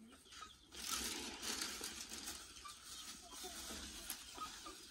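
Faint rustling of a plastic feed sack, with the scrape and patter of dry broiler starter feed as a plastic bowl is scooped into it and filled. It begins under a second in and keeps up in small, uneven clicks.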